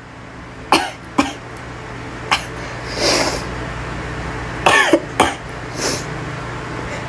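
A woman coughing and clearing her throat in a series of short, separate bursts, with a longer breathy intake about three seconds in, during a pollen-allergy fit.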